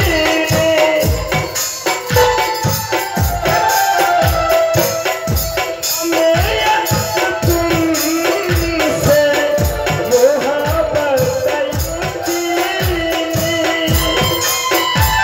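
Live folk music: a drum keeps a steady beat of about two to three strokes a second, under a wavering melody and rattling, shaker-like percussion.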